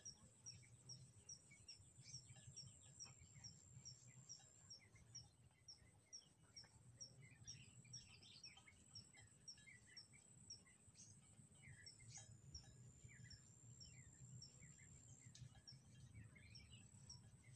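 Faint outdoor birdsong: scattered short bird chirps over a high, even chirp repeating two or three times a second, with a thin, steady high-pitched whine behind them.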